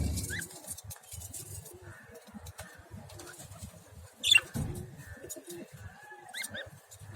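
Caged lovebirds calling with short, high chirps over a low, repeating cooing. About four seconds in there is a sudden, louder call with a thump.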